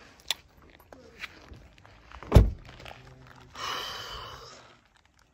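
Car door shut with a single heavy thunk about two and a half seconds in, after a few light clicks, followed by a short rustle.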